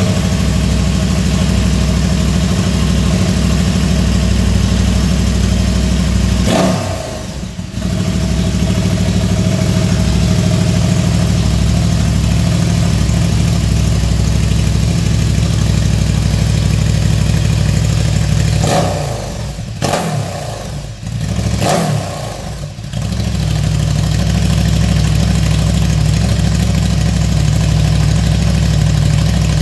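2018 KTM 1290 Super Duke R's V-twin running through an Akrapovič shorty slip-on muffler: a steady idle, blipped once about a quarter of the way in and two or three more times about two-thirds of the way through, the pitch rising with each blip.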